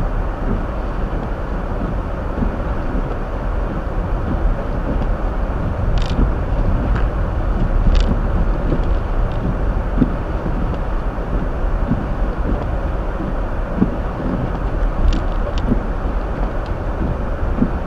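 Steady road and tyre noise inside a Hyundai Elantra's cabin while driving on a snow-covered road, with a few light clicks scattered through it.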